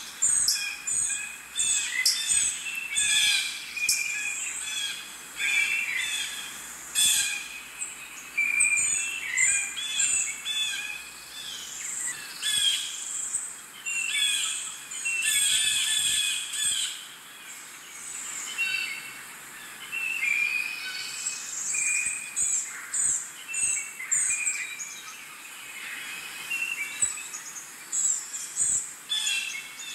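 Several birds chirping and calling at once, a dense chorus of short high chirps and trills that keeps going without a break.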